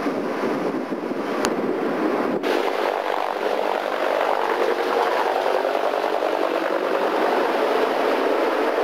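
Steady rushing deck noise aboard a ship, wind and machinery over a camcorder microphone. There is a sharp click about one and a half seconds in and a brief break a second later, where the recording cuts.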